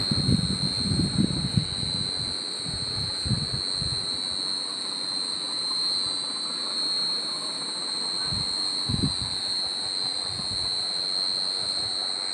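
Steady high-pitched drone of chirring forest insects, unbroken throughout, with a few low muffled thumps.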